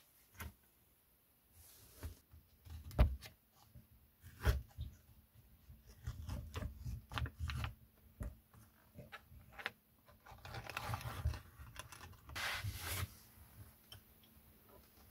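Handling of a foil-sealed aluminium ready-meal tray on a wooden table: scattered knocks and clatters, then the crinkling and tearing of its foil lid being peeled back, loudest in two short stretches in the second half.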